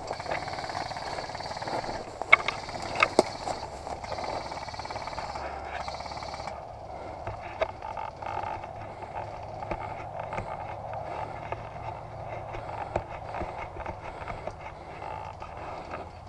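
Dry grass and brush rustling and crackling as a person creeps through it on foot, with a few sharp clicks about two and three seconds in.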